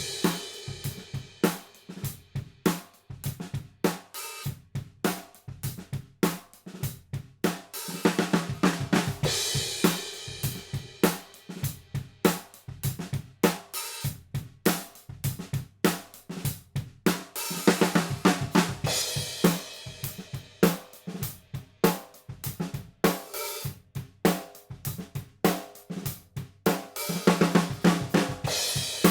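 DW Collector's Series acoustic drum kit played in a steady groove: kick drum, snare and Zildjian K Custom hi-hats, with crash-cymbal-heavy passages about every nine seconds.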